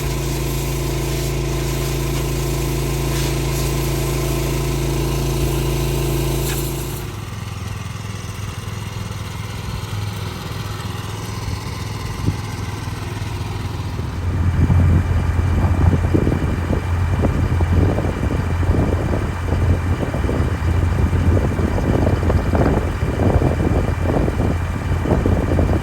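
A vehicle engine running steadily; about seven seconds in the sound changes abruptly, and from about fourteen seconds in a louder, uneven low rumble takes over.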